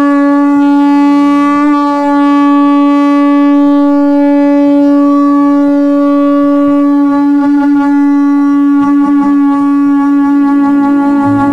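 A single low, horn-like note held steadily for several seconds, with a slight waver near the end.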